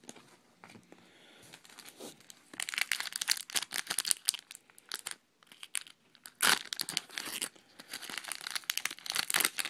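Plastic trading-card pack wrapper crinkling and tearing as it is opened, in two bouts of dense crackling with a sharp loudest crackle in the middle.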